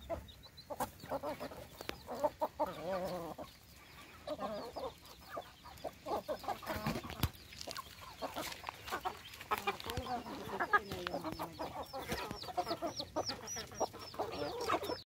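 A flock of hens and roosters clucking as they peck and feed, with many short calls overlapping. A run of quick, high peeps comes near the end.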